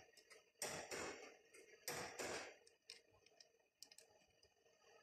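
Brake caliper parts and hardware handled by a gloved hand: two short scraping sounds about a second apart near the start, then a few faint clicks.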